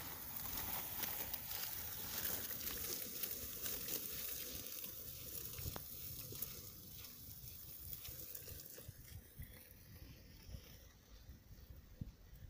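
Gusty wind buffeting the microphone outdoors: a crackly hiss over an uneven low rumble, easing off after about nine seconds.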